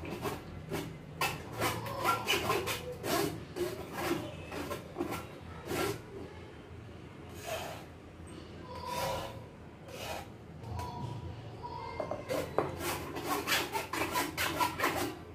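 A spoon scraping and pressing thick tamarind-date chutney through a stainless steel mesh strainer in repeated strokes. The strokes thin out in the middle and pick up again near the end.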